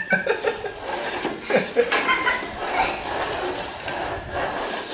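Upturned bowls knocked and slid about on a small tabletop as they are shuffled, with scattered clinks and knocks, most of them about a second and a half in, and some soft chuckling.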